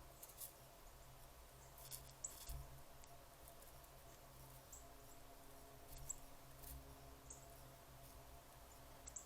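Faint, short, very high-pitched chip notes, about five spread through, with a few soft clicks, over a faint steady low hum.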